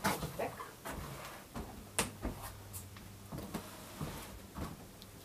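Footsteps and small knocks on a wooden floor, scattered and irregular, over a low steady hum.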